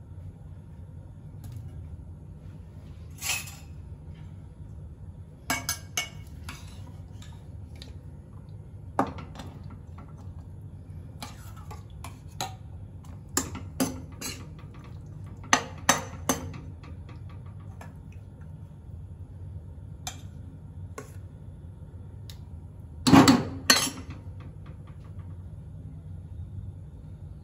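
A steel ladle clinking, knocking and scraping against a kadai as cooked yellow peas are stirred and heated, in irregular scattered strokes with the loudest knocks near the end, over a low steady hum.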